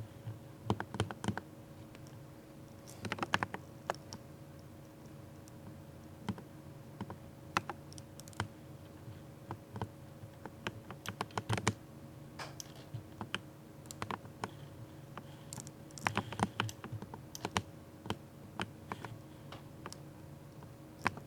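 Typing on a lubed mechanical keyboard: keystrokes come in irregular bursts of quick clicks, with short pauses between them. A faint steady hum sits underneath.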